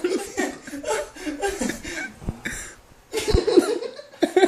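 Coughing and laughter in short, choppy bursts, with a brief pause about three seconds in. It fits a man coughing from the burn of a ghost pepper he has just eaten.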